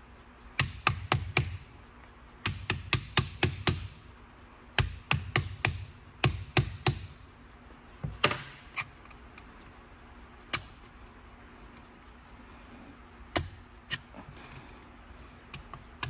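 Soft-faced mallet striking the main bearing caps of a 1275cc BMC A-Series engine block, in quick bursts of three to six sharp knocks, then a few single blows further apart, to knock caps loose that are stuck tight.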